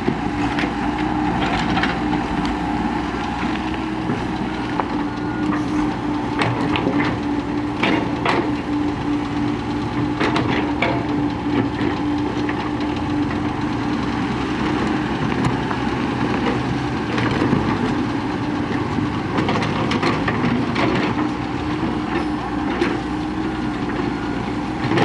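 Heavy diesel earthmoving machinery running steadily, with a constant hum over the engine drone and a sharp knock or clank every few seconds.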